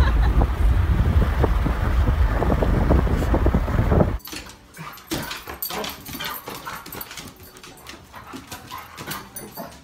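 Wind rushing and buffeting past an open car window at driving speed, with a dog's head out in the airstream. After about four seconds it cuts off suddenly to a much quieter stretch with scattered clicks and a few short dog whimpers.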